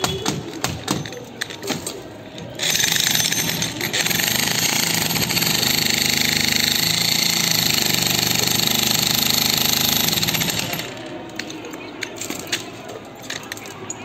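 Electric demolition hammer breaking a reinforced concrete slab, running continuously for about eight seconds in the middle. Before and after that run there are scattered sharp knocks and clatter.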